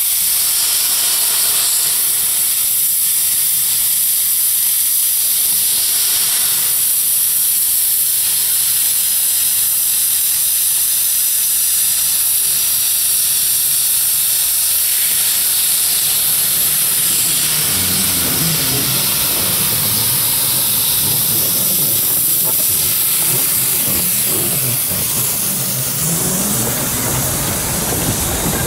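The 1924 Wee Georgie Wood 610 mm gauge steam locomotive hissing steam loudly and steadily. In the second half it moves off with steam jetting from around its cylinders, and a low rumble builds as it draws its carriage past.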